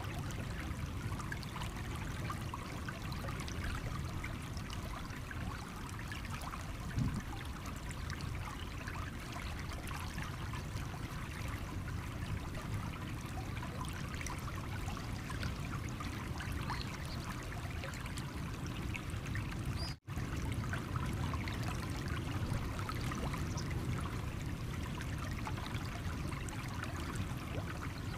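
Stream water running and trickling over stones, a steady babble with many small splashes. The sound cuts out for an instant about two-thirds of the way through, then carries on unchanged.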